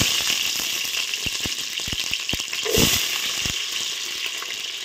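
Shallots sizzling and crackling in hot oil just after being tipped into the pot, with sharp pops of spattering; the sizzle eases gradually. A brief louder thump about three seconds in.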